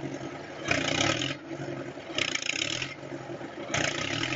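Tracked tractor diesel engine running under load, with rough noisy bursts about every second and a half on top of a steady low engine note.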